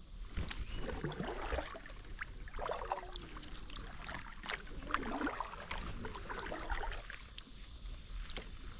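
Kayak paddle strokes dipping and splashing in the river, in an uneven rhythm of a few strokes, with water dripping off the blade.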